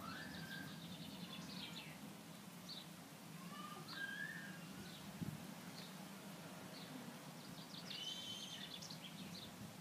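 Small birds chirping and twittering on and off, in short calls, over a faint steady low hum. One soft knock about five seconds in.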